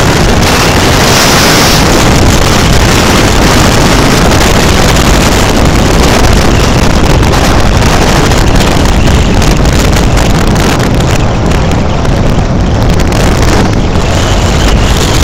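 Heavy wind rush buffeting the microphone of a phone carried on a moving scooter, with the scooter's running drowned in the steady roar.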